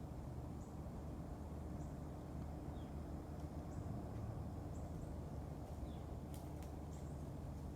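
Quiet woodland ambience: a low steady rumble with faint, short high chirps repeating about once a second, and two sharp clicks near the end.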